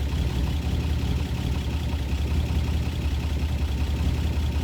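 Buick Grand National's engine idling steadily with a low, even rumble, a moment after being started.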